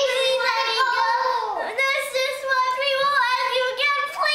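A child singing one long held high note, with a quick dip in pitch about a second and a half in.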